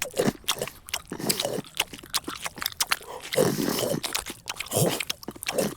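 Loud, close-up crunching and chewing: rapid wet clicks and crunches of noisy eating, with heavier bites every second or so. It starts abruptly.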